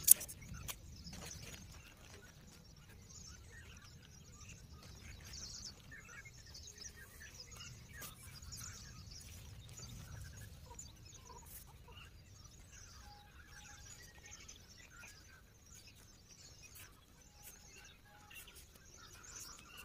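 Birds chirping and calling, many short scattered chirps, over the rustle and scattered clicks of tent fabric and poles being handled; one sharp click right at the start.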